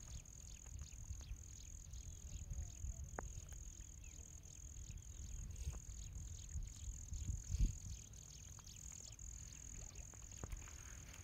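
Faint outdoor ambience: a steady high whine and rapid, faint high chirps over a low rumble, with one low thump about seven and a half seconds in.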